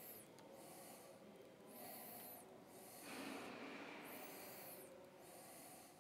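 Near silence: faint room tone with soft hissing swells about every two and a half seconds.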